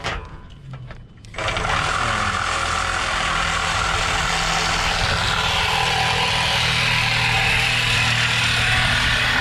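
A steady, loud engine-like running noise starts suddenly about a second and a half in and carries on.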